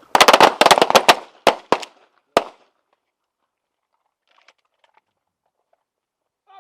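A ragged volley of handgun shots from a firing line of several shooters firing on command: a dense cluster of overlapping shots in the first second, then a few stragglers, the last about two and a half seconds in.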